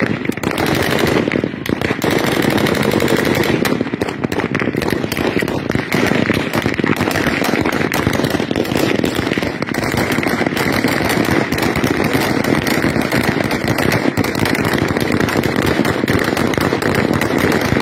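Rapid, continuous gunfire: many shots following one another with no break.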